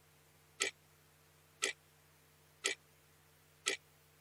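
Steady ticking, one sharp tick each second, four in all, over a faint steady hum.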